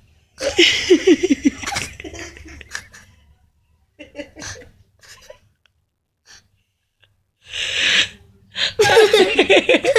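Breathy human laughter in two bursts, about a second in and again near the end, with a sharp breath drawn in just before the second burst.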